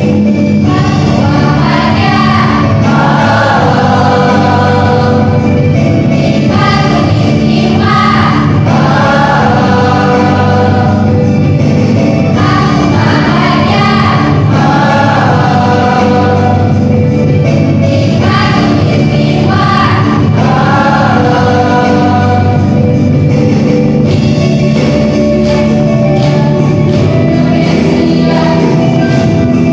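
Mixed choir of boys and girls singing together under a conductor, in phrases a few seconds long over sustained low notes.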